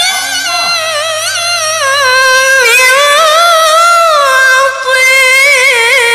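A woman's voice reciting the Quran in melodic tilawah style into a handheld microphone: long held notes that waver in quick ornamental turns and slide down in pitch, with a short break for breath just before five seconds in.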